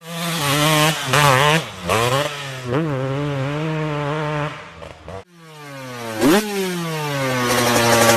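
Two-stroke motocross bike engines. The first is revved in quick blips over a steady note and cuts off abruptly about five seconds in. A second engine's pitch then falls, blips sharply once, and settles into a steady note.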